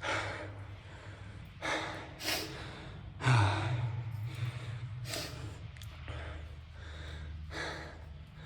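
A person breathing hard and gasping, with deep breaths every second or two, winded from crouch-walking.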